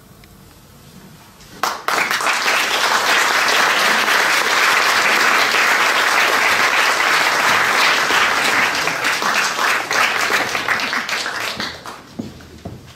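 Audience applauding: the clapping starts suddenly about two seconds in, holds steady, and dies away near the end.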